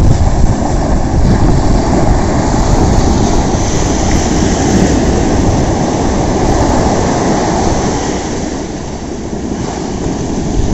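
Loud, even rushing noise of sea surf and wind at the shore, easing slightly near the end.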